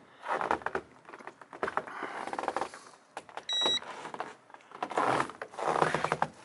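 Footsteps crunching in deep, very cold snow, a few steps in bursts, with a short electronic beep from a handheld infrared thermometer about three and a half seconds in.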